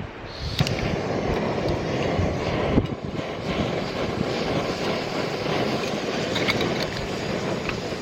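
Steady rushing of river water, setting in abruptly about half a second in.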